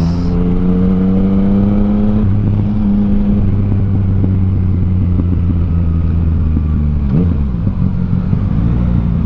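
Yamaha Tracer 900's CP3 inline-three engine running under way through an Akrapovic full exhaust system. The revs climb gently for about two seconds, then hold fairly steady, with a brief change in pitch about seven seconds in.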